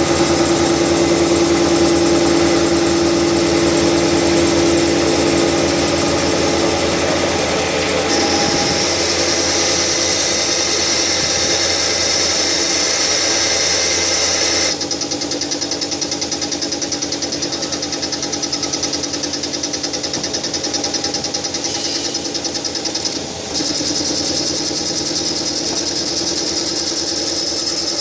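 Combined CNC turning, milling, drilling and tapping special-purpose machine running steadily, with a fine rapid pulsing. About halfway through the high hiss drops away and the sound gets a little quieter, with a brief dip near the end.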